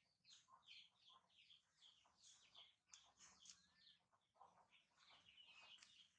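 Faint chirping of small birds: many short, high chirps, several a second.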